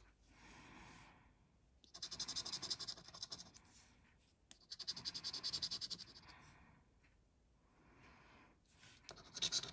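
A coin scratching the scratch-off coating of a scratchcard in rapid back-and-forth strokes. There are three bursts of a second or so each: about two seconds in, around five seconds, and again near the end.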